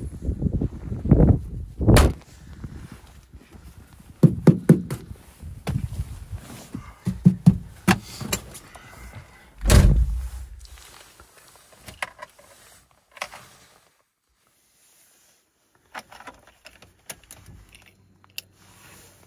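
Lada Niva's doors being shut with a heavy thunk, about two seconds in and again, lower and louder, about ten seconds in, amid knocks and rustling. Then small clicks as a key goes into the ignition.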